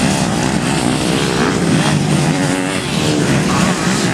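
Several motocross dirt bikes running together, their engines overlapping and revving up and down as they ride over the jump.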